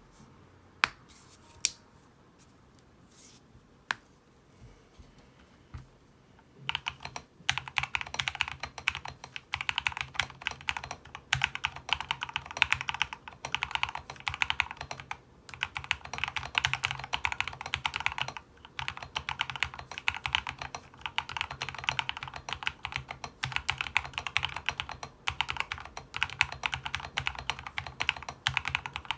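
Custom Lumberjack mechanical keyboard being typed on: a few separate key presses, then fast, continuous typing from about seven seconds in, with a few short pauses. It has stock Agile Moon switches on the main keys and a GH60 plastic case with tape, Poron foam and PE foam mods.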